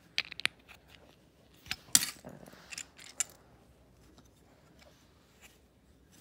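A few sharp clicks and clatters of hard plastic LEGO pieces being handled, grouped in the first three seconds, with the loudest about two seconds in.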